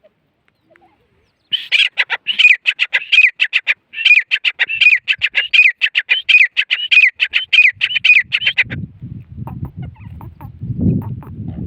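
Grey francolin calling a rapid, even series of short, high notes, about three or four a second, with a brief break partway through. The calls stop near the end and give way to a low rumbling noise.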